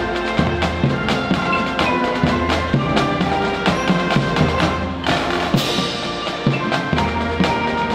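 Music with drums and a bass line, the drum strikes coming in a steady beat over sustained pitched notes.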